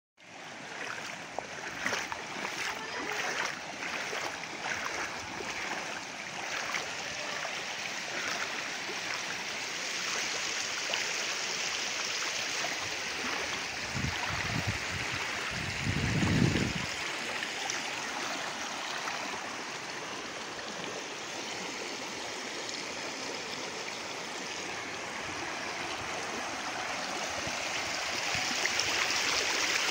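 Steady rushing of flowing floodwater, with a brief low rumble about halfway through.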